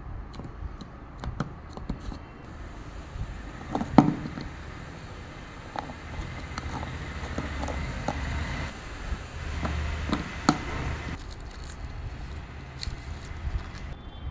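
Handling noises from cardboard and paper craft work: scattered taps and clicks, the loudest about four seconds in, over a steady low background rumble.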